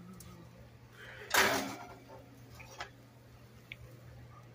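A single sharp clatter in the kitchen about a second in, with a short click a little later, over a steady low hum.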